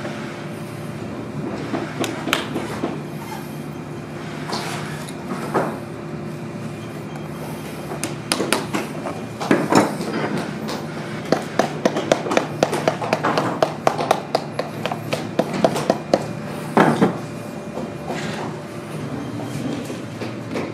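Lasting pliers' hammer head tapping tacks through a suede boot upper into the last, over a steady low workshop hum. A few scattered taps come first, then a quick run of many light taps in the second half.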